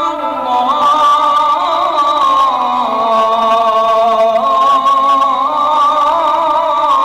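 A man's voice chanting in long, held, ornamented melodic notes in the Egyptian religious style, gliding slowly between pitches without pause.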